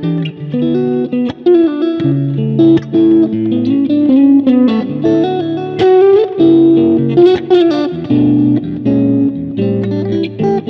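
Fender Japan Modern HSS Stratocaster electric guitar played through the BIAS FX 2 Mobile amp simulator, playing a rock riff of held chords and single notes that are cut off sharply between phrases.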